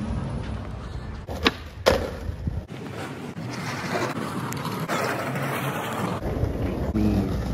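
Skateboard on street asphalt: two sharp clacks of the board less than half a second apart about a second and a half in, then the wheels rolling over rough asphalt for a few seconds.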